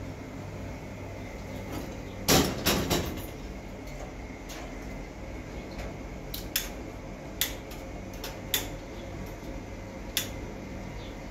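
Kitchenware handled by hand: a brief clatter of dishes knocking together about two seconds in, then scattered single knocks and clicks.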